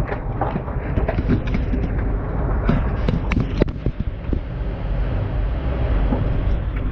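Scraping, rustling and irregular knocks of a person crawling into a tight cave passage, over a steady low rumble of handling noise.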